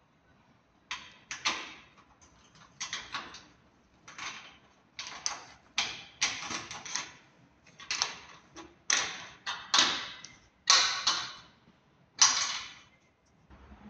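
A spanner turning the bolt of an aluminium clamp that fixes a solar panel to its mounting rail: about a dozen short strokes, roughly one a second, getting louder toward the end.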